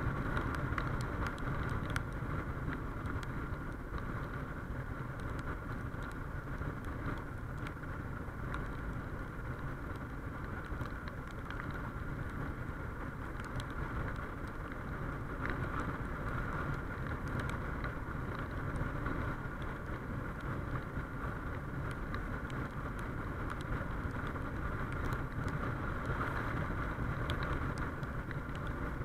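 Suzuki XF650 Freewind's single-cylinder engine running while cruising at moderate speed, mixed with steady wind and road noise, picked up by a chest-mounted action camera's built-in microphone.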